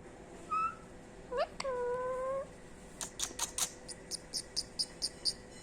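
Indian ringneck parrot calling: a short rising note, then a sharp upward slide into a held tone lasting most of a second, followed from about halfway through by a quick run of short high ticks, about five a second.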